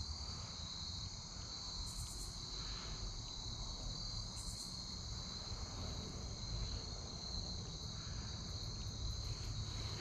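Evening insect chorus of crickets trilling steadily at two high pitches, with brief higher buzzing bursts about two and four and a half seconds in.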